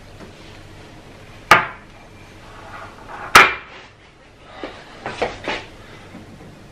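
Kitchen dish clatter: two sharp knocks about two seconds apart, the second and loudest a ceramic bowl being set down on a stone countertop, followed by a few lighter knocks.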